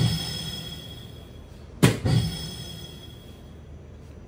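A soft-tip dart strikes an electronic dartboard about two seconds in, a single sharp thud, followed by the machine's electronic hit sound ringing as steady tones for a couple of seconds.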